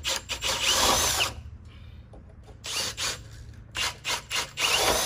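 Cordless drill boring into a wooden board, its motor whining up and down with each trigger pull. It runs for about a second and a half, then in several short bursts.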